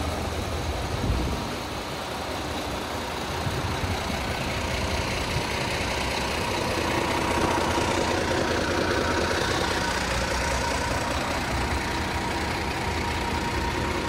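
Cummins 10.8-litre diesel engine of a Peterbilt 320 roll-off truck idling steadily, with a brief low thump about a second in.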